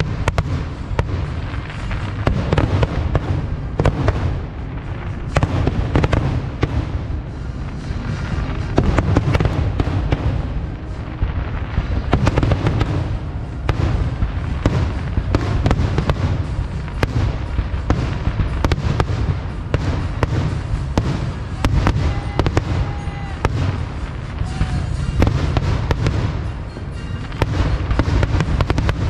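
Fireworks display: many shells bursting in quick succession, sharp bangs and crackles piling up over a steady low rumble.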